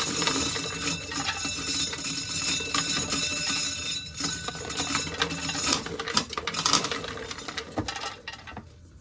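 Corn being shelled: a dense, rapid clatter of loose kernels striking metal and each other, thinning out and stopping shortly before the end.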